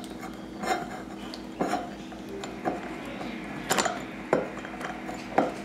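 Metal winged corkscrew clicking and scraping as it is worked on a wine bottle's cork: six sharp clicks about a second apart, over a steady low hum.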